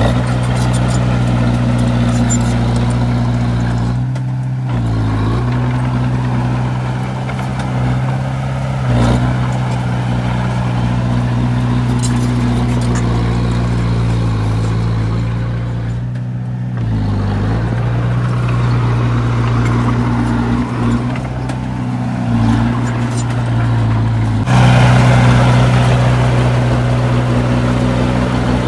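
Heavy diesel engines of earthmoving machinery running steadily, their note shifting several times and getting louder near the end.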